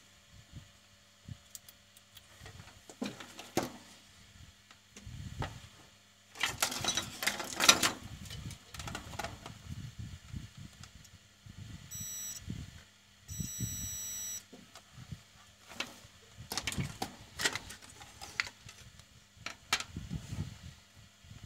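Handling noise at a workbench: clicks, knocks and a brief clatter as a modem circuit board and metal parts are picked up and moved by hand. Two short high electronic beeps sound about halfway through, the second longer.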